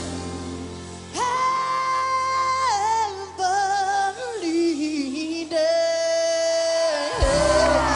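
A woman singing solo into a microphone, holding long, high belted notes over a low held chord from the band. Near the end the music cuts off and a crowd begins cheering.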